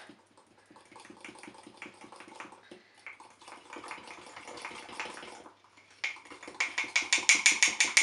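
A fork beating egg, sugar and flour batter in a ceramic mug, its tines clinking rapidly against the sides many times a second. There are brief pauses, and the beating gets louder about six seconds in.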